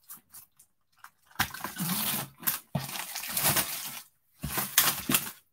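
Clear cellophane wrapper crinkling and tearing as it is peeled off a pack of paper. After a second or so of faint clicks come two stretches of crackly rustling, with a short pause about four seconds in.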